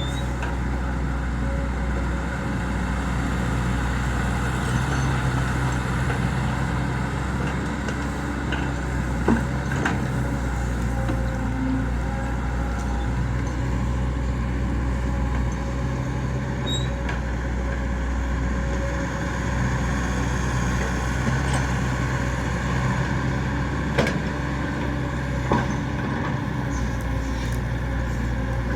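Hydraulic excavator's diesel engine running steadily, its note swelling and easing every few seconds as it works, with a few sharp knocks, the two clearest about nine and twenty-four seconds in.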